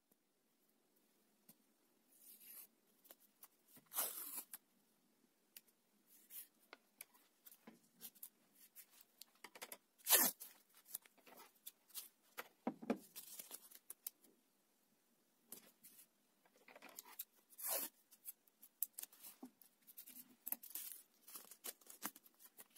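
Masking tape being pulled off its roll and torn, in irregular short ripping and crinkling sounds with scattered clicks; the loudest rip comes about ten seconds in.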